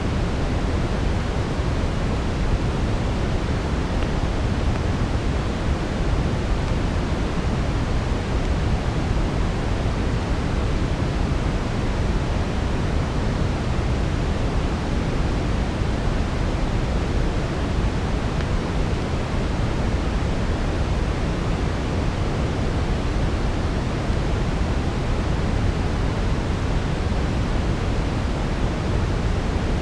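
Steady brown noise: a deep, even hiss weighted to the low end, unchanging throughout.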